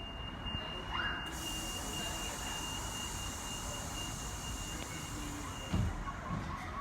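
Train running with a low rumble and hiss, and a steady high-pitched tone held for about six seconds that stops near the end.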